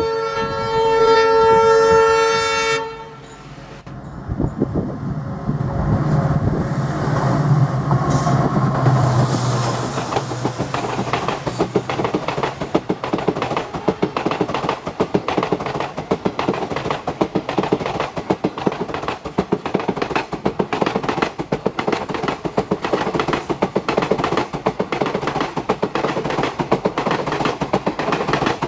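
Indian Railways WDP4D diesel locomotive sounding its horn for about three seconds, then its engine passing close by. After that, the coaches follow with a steady clickety-clack of wheels over the rail joints.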